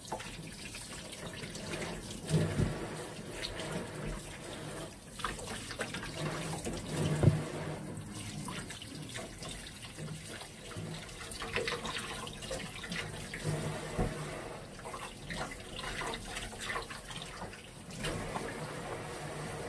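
Tap water running into a sink, with intermittent knocks and clatter of things being handled in it.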